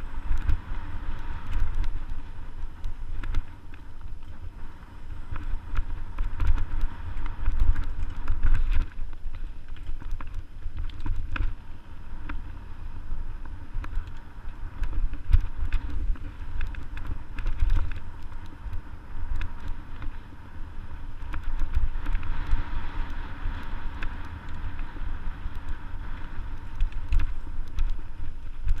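Mountain bike riding over a dirt singletrack trail, recorded on the rider's action camera: a heavy, uneven rumble of wind and vibration on the microphone, with frequent rattles and clicks from the bike over the rough ground.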